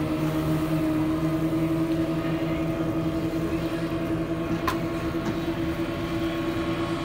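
Speedboat engine running steadily at speed, its pitch held even, with a rush of water and wind over it. A single sharp click comes about two-thirds of the way through.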